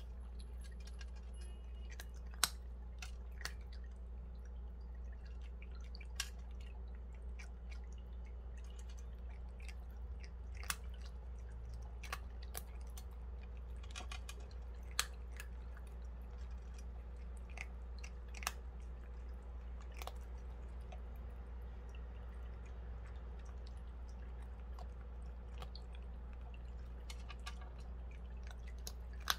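A cat chewing dry kibble from a stainless-steel bowl: irregular sharp crunches and clicks every second or few seconds, over a steady low hum.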